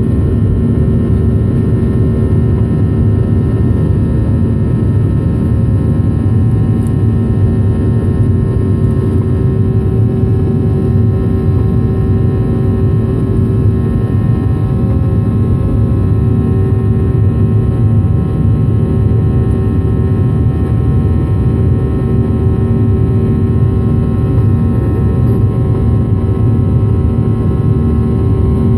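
Cabin noise of a Boeing 737-800 in its initial climb after takeoff: its CFM56-7B jet engines at climb thrust give a loud, steady roar with several steady tones over it, heard from a window seat beside the engine.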